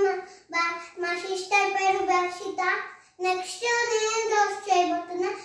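Children singing a short tune in held notes, in phrases with brief pauses between them.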